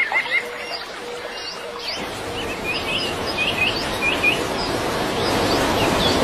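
Birds chirping, a quick run of repeated chirps at the start and then scattered short calls, over a steady rushing noise that grows louder from about two seconds in.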